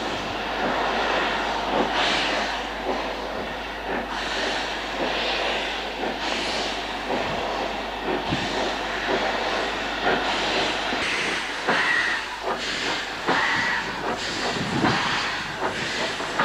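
Steam locomotive working hard as it draws past, with heavy exhaust beats and hissing steam blowing from around its cylinders.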